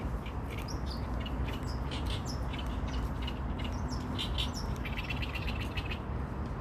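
A bird calling in a run of short, high chirps, with a quick trill about five seconds in, over a steady low rumble.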